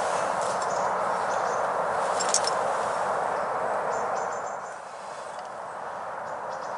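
Quiet woodland background: a steady hiss with a few brief, faint high-pitched chirps from small birds. The hiss dips a little about four and a half seconds in.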